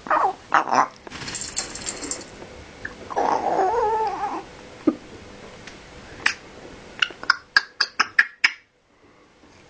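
African grey parrot mimicking a pig: short grunting oink-like calls at the start, a hissing noise, then a wavering call about three seconds in. Near the end comes a quick run of sharp clicks, about four or five a second.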